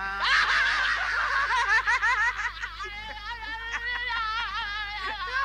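High-pitched laughter, its pitch wavering quickly up and down, starting with a noisy burst.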